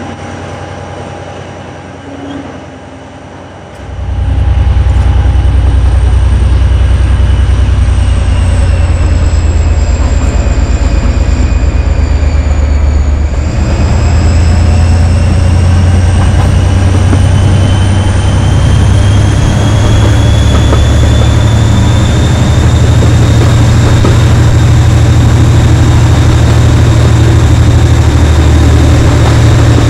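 Class 57 diesel locomotive's GM 2,500 hp engine heard from the train behind it, working under power. About four seconds in it opens up to a loud, deep throbbing, and a whistling tone above it dips and then climbs steadily.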